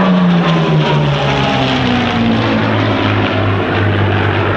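Piston engines of two WWII propeller fighters flying low overhead. The engine note drops in pitch over the first couple of seconds as they pass, then holds steady as they fly on.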